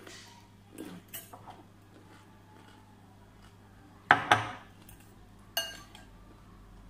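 Metal fork clinking and scraping against a glass salad bowl in scattered taps. The two loudest knocks come about four seconds in, and a clink with a short ring follows about a second and a half later.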